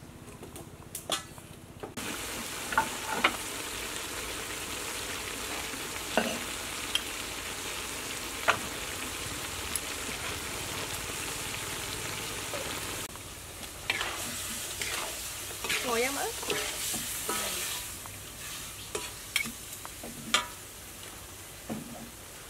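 Beef liver stir-frying in a wok: a steady sizzle that sets in about two seconds in, with a metal spatula repeatedly scraping and knocking against the pan as it is stirred.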